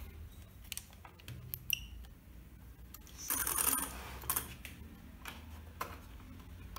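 Light clicks and small metallic clinks of small parts and tools being handled, with a short rustle about three seconds in.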